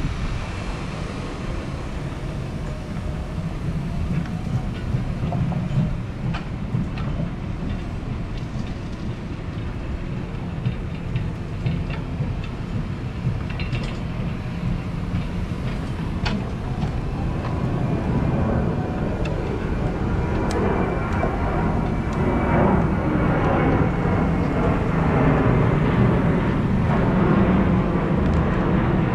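Yale NR035A3 electric stand-up reach truck driving on asphalt: a steady mechanical run over a low rumble, with a few sharp clicks. It grows louder about two-thirds of the way through.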